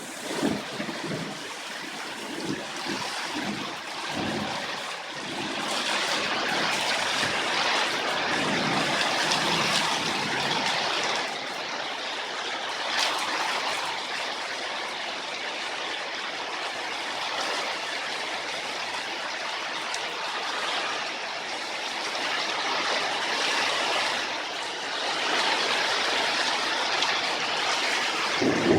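Heavy rain falling in gusting wind, a steady hiss that swells and eases. Low thumps of wind on the microphone come in the first few seconds.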